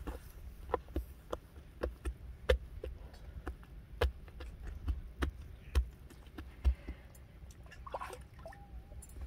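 Irregular sharp taps and soft thumps, one or two a second, as flatbread dough is pressed and patted onto the inside wall of a hot clay tandoor.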